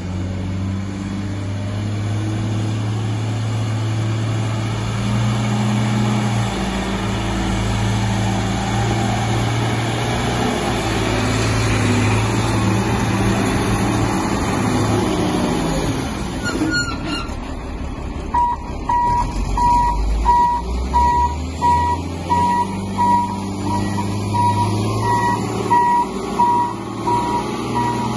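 Caterpillar D250E Series II articulated dump truck's six-cylinder diesel engine running steadily as the truck drives. About two-thirds of the way in there is a sharp click, then its reverse alarm beeps about once a second as it backs up.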